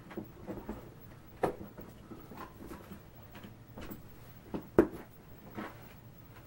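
Rustling with scattered light clicks and knocks as small items are handled and packed into a handbag. One sharper knock comes near the end.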